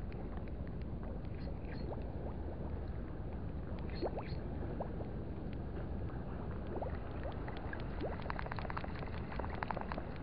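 Steady low rumble of wind and water. Near the end comes a fast run of fine ticks from a small spinning reel as its handle is cranked quickly to retrieve a lure.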